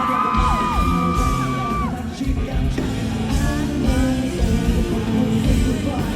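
Live rock band playing an instrumental passage of a song with a steady beat. Over the first two seconds several high, held yells from the audience ride on top, each falling away at the end.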